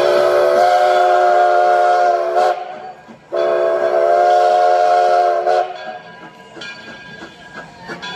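Steam locomotive's chime whistle blowing two long blasts, each a steady chord of several notes, with a short gap between them: the standard whistle signal for a train about to move off.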